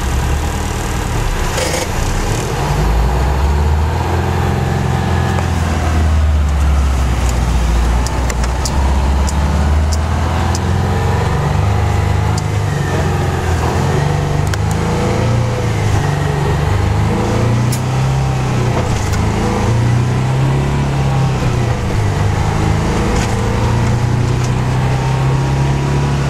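Kenworth K100C cab-over truck's diesel engine heard from inside the cab, pulling away and driving on. Its pitch rises and drops in steps as it works up through the gears.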